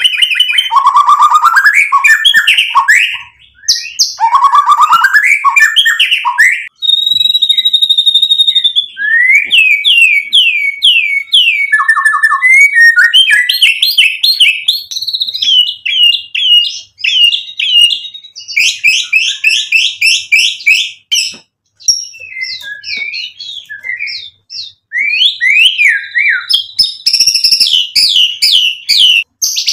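White-rumped shama singing a loud, varied song: fast trills, sweeping whistles and runs of quickly repeated short notes, with a few brief pauses between phrases. This is the full mimicry-filled song that keepers call 'isian'.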